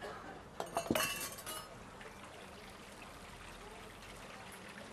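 Kitchenware clinking and clattering for about a second, starting just under a second in, with a short ring after the hits: the metal measuring cup in its ceramic bowl and the spatula against the wok. After it comes a faint steady hiss of the wok simmering as the mushrooms braise in water.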